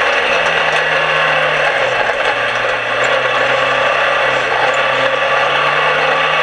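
Dirt-track race car's engine heard from inside the cockpit over a dense mechanical rattle of the car. The engine note dips about two seconds in, then climbs steadily as the car picks up speed.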